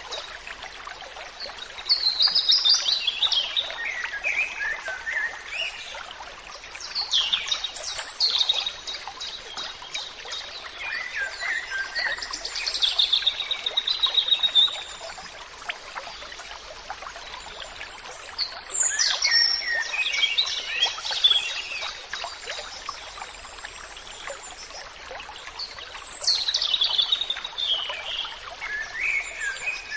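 Songbirds singing: bursts of chirping and trilling come every five or six seconds over a steady background hiss.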